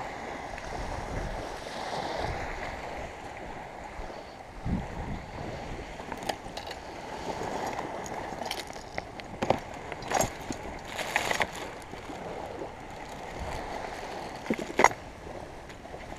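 Small waves lapping steadily on a sandy shore. In the second half a few short clicks and rustles, the loudest sounds, come from hands rummaging through a fabric gear bag on the sand.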